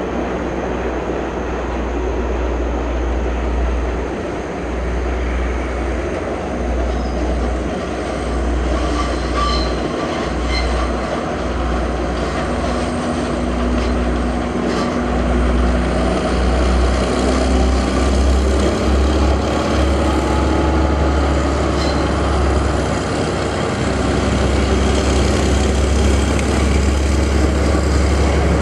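Diesel train running across a stone railway viaduct: a steady rumble with a few scattered clicks, growing a little louder near the end.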